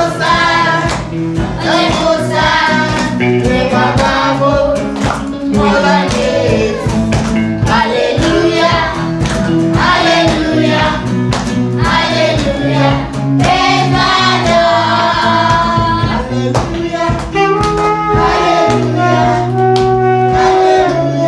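Gospel song: a group of voices singing over a backing track with a steady beat.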